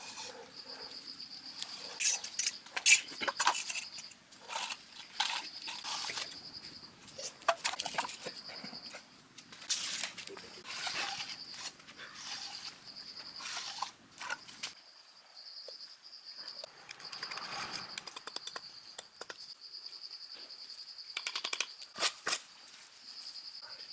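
Short scrapes, taps and knocks of masonry hand tools on concrete: an aluminium spirit level and marker pen being handled on the slab, then a steel trowel working mortar near the end. A high, steady trill keeps starting and stopping in the background.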